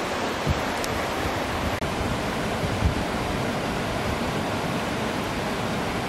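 Rushing whitewater of the Mississagi River rapids, a steady, even roar of water, with a few brief low thumps.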